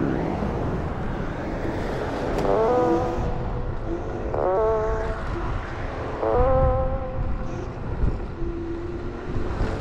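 Ride noise from an electric scooter at speed: a steady rumble of wind and road on the helmet camera's microphone, with a few short held tones over it.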